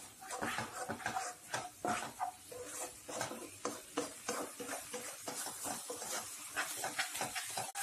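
Spatula stirring a thick spiced sauce in a nonstick wok, scraping and tapping irregularly against the pan, over a light sizzle.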